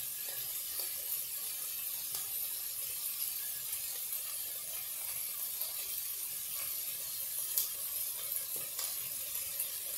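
Chicken pieces frying in a little oil in a pot, giving a steady sizzle, with an occasional faint tap.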